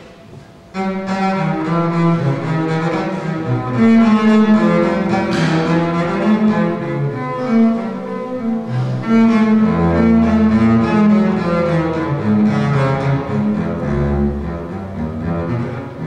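Solo double bass played with the bow: a line of held notes that starts suddenly about a second in, with deeper low notes sounding twice in the second half.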